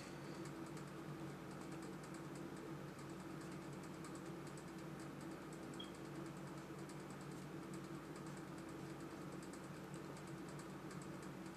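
Faint, quick light taps like typing on a keyboard while a Bible verse is looked up, over a low steady hum.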